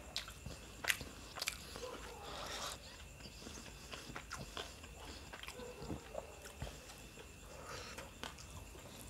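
Close-up mouth sounds of a man chewing a mouthful of rice and devilled chicken: irregular wet smacks and sharp clicks, with a couple of louder clicks a second or so in. Near the end his fingers rake into the rice on the plate.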